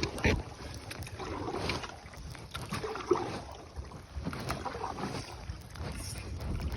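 Canoe being paddled: paddle strokes in the water coming and going about every second or so, with wind rumbling on the microphone and a few light knocks.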